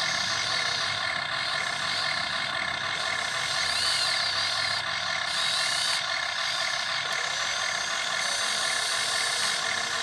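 Radio-controlled model excavator's electric motors whining steadily, with a higher tone that wavers and glides up and down as the machine works.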